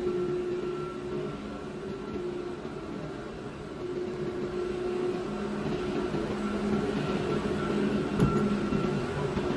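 Steady hum of a running plastic-pipe extrusion line, with a steady mid-pitched tone over the mechanical noise, growing a little louder in the second half. A single sharp knock comes about eight seconds in.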